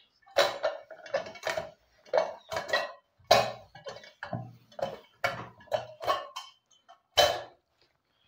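Antique charcoal-heated metal box iron knocking and clanking on a table as it is worked back and forth over a shirt. The knocks are irregular, about two a second, each with a short metallic ring, with a brief pause near the end before one last loud knock.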